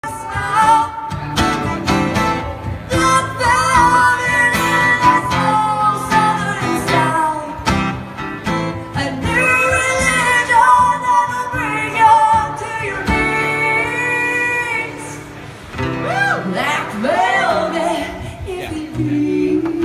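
A woman singing a song live while strumming an acoustic guitar.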